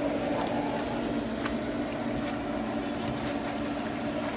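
A steady mechanical hum from a motor, a constant low drone, with a few faint splashes of water from dogs swimming in a pool.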